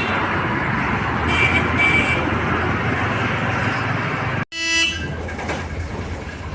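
Road traffic running steadily, with two short high beeps of a horn about a second in and a louder, lower vehicle horn honk a little before the end.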